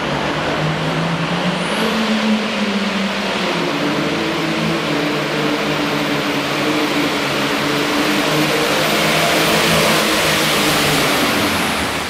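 John Deere Super Farm pulling tractor's turbocharged diesel engine running hard under full load as it drags the weight-transfer sled down the track, building slowly in loudness through the pull.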